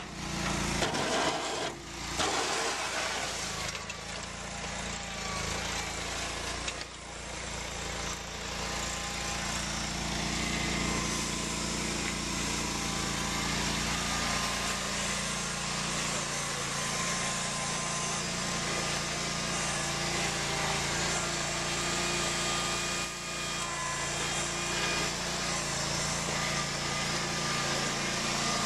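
Small engine of a John Deere garden tractor running steadily as the tractor drives with a front-end loader.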